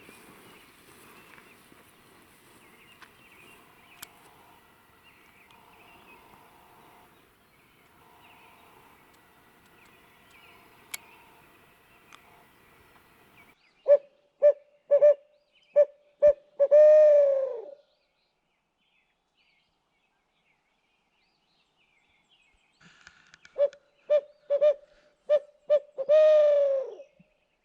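Barred owl hoots: two loud 'who-cooks-for-you' phrases about ten seconds apart. Each is a quick run of short hoots ending in one long, drawn-out note that falls in pitch. Before them there is only a faint background.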